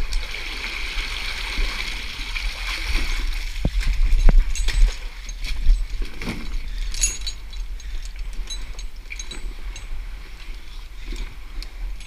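Water splashing and sloshing as someone wades or swims through a canyon pool, with two sharp knocks about four seconds in over a steady low rumble.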